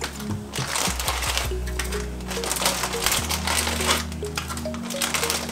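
Crinkling of a clear plastic bag as pastry tartlet shells are pulled out of it and stacked, over background music.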